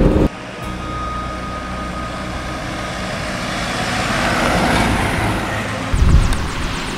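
Road vehicle driving, a steady low engine hum with road noise that swells about four seconds in and has a brief loud burst near the end.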